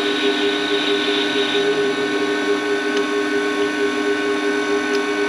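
Warco WM180 mini lathe running, its motor and gearing giving a steady two-note whine, while a carbide insert takes a light 0.25 mm cut in aluminium. A hiss over the whine eases off about two seconds in.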